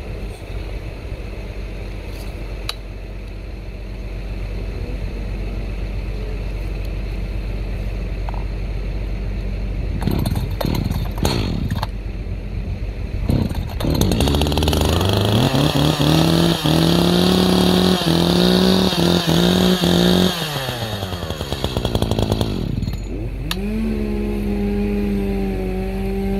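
Echo CS-590 two-stroke chainsaw test-run with its chain freshly refitted: after a steady low run, a few short revs, then the throttle is opened up to a high, steady scream held for about six seconds before it drops back, and it is revved up again near the end.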